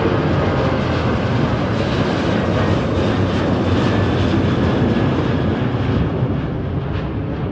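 Jet engines of a Ryanair Boeing 737 climbing out overhead after take-off, a loud steady rushing noise that begins to fade near the end as the aircraft moves away.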